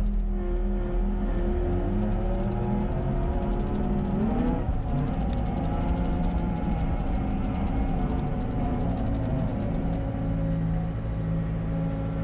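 John Deere 325 skid steer's diesel engine running, revving up about four seconds in and holding the higher speed.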